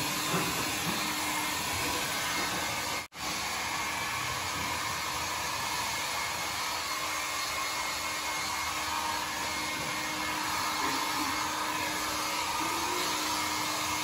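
Small handheld hair dryer blowing steadily while it is held to a Rottweiler's wet coat to dry it. The sound is a constant rush of air with a faint motor hum, and it cuts out for an instant about three seconds in.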